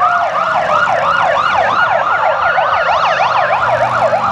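Emergency vehicle siren in a fast yelp, its pitch sweeping up and down about four times a second.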